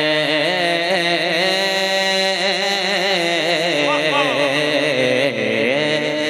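A man singing a naat unaccompanied, drawing out one long sung phrase whose pitch turns and wavers in ornamented runs.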